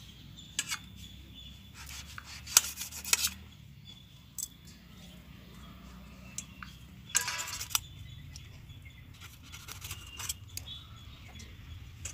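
Small kitchen knife cutting through raw potato and clicking and scraping against a stainless steel plate: a scattered series of sharp metallic taps, with a small cluster of them a few seconds in.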